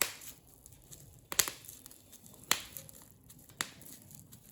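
Plastic bubble wrap handled and pressed onto paper for paint printing, giving four sharp crackling snaps about a second apart, the second a quick double.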